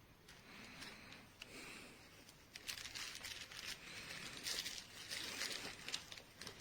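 Crinkle material inside a plush dog toy rustling as the toy is squeezed and handled, in irregular bursts that grow louder and busier from about two and a half seconds in.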